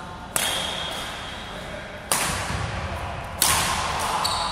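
Badminton rackets striking a shuttlecock in a rally, three sharp smacks about a second and a half apart, each ringing on in the echo of a large hall.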